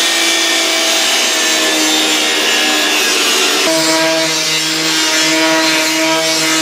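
Angle grinder with a thin cutting disc cutting through the rusty steel of a van's wheel arch: a steady motor whine under the loud hiss of the disc on metal. The tone changes abruptly a little over halfway through.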